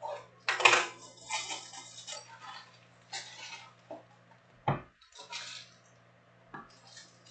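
Plastic top loaders and their cardboard box being handled: bursts of rustling and light clattering, with one sharp knock about four and a half seconds in.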